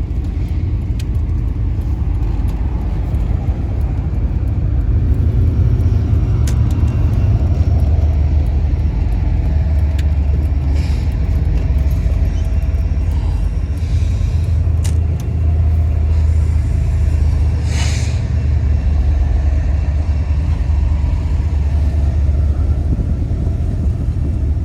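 Van driving along a highway: steady low engine and road rumble, with a brief hiss about three-quarters of the way through.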